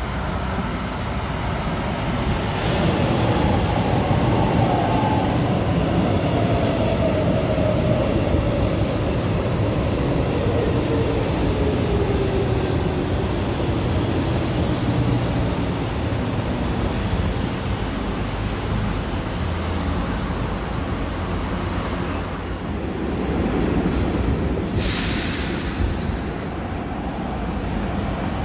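Electric metro train passing close by: a steady rumble of wheels on the rails with an electric whine that falls slowly in pitch. A short hiss comes about three quarters of the way through.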